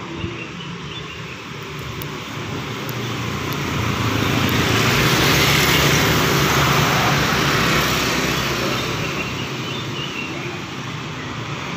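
Road traffic: a vehicle passes close by, swelling to its loudest in the middle and fading away, over a steady low engine hum.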